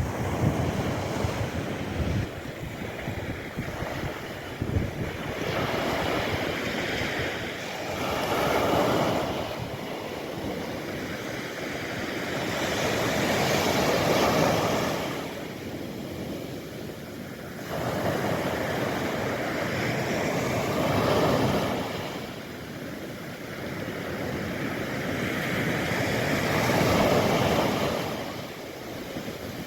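Mediterranean surf breaking on a beach, waves swelling and washing in about every five to seven seconds, with wind buffeting the microphone.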